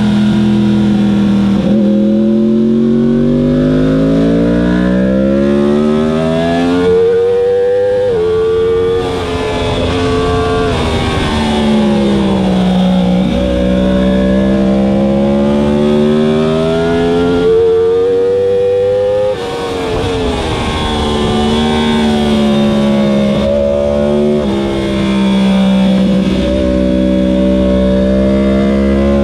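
2015 Yamaha R1's crossplane inline-four engine heard from on board, revving up and falling away again and again as the bike accelerates, changes gear and slows for corners. The pitch climbs in long rises and drops sharply at each gear change.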